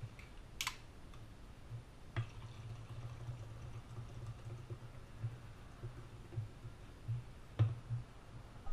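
Faint clicks and light knocks of a glass bottle and a drink can being handled on a tiled counter, with a sharp click about half a second in, and a drink poured softly into a glass. A low steady hum runs underneath.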